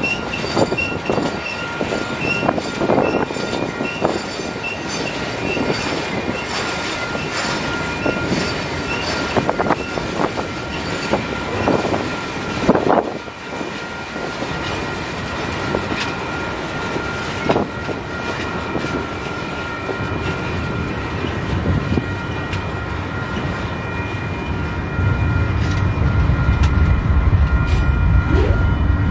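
Freight train rolling past on the rails, its wheels giving a steady high squeal over the clatter of the cars. A louder low rumble comes in near the end.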